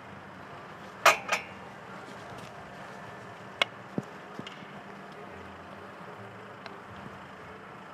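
Field hockey stick hits: two sharp clacks in quick succession about a second in, then a few fainter single clacks spread through the rest of the play.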